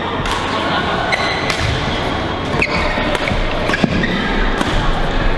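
Badminton rallies in a large echoing hall: several sharp racket strikes on shuttlecocks, footfalls, and a few short squeaks of court shoes, over a background of voices.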